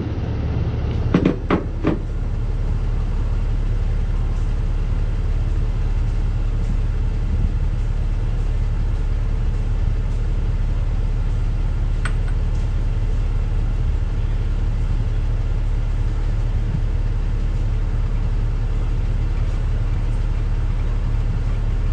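Steady low rumble of a vehicle running, with a few sharp knocks about a second in.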